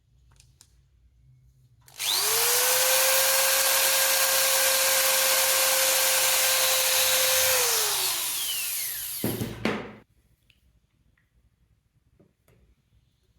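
Electric drill motor spinning up to a steady high whine with a loud rushing hiss, running for about six seconds, then winding down with falling pitch. A couple of low knocks follow as it stops.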